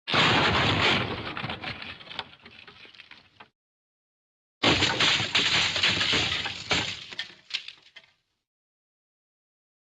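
A sound-effect smash played twice: each time a sudden loud crash of breaking, with glassy clinks and debris clattering down as it dies away over about three seconds. The second crash comes about four and a half seconds in.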